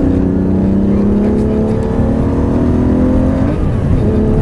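Aston Martin DBS's V12 engine accelerating hard, heard from inside the cabin over a heavy low road and wind rumble, its note rising steadily in pitch. About three and a half seconds in the note breaks and drops with an upshift of the six-speed manual, then pulls on at the lower pitch.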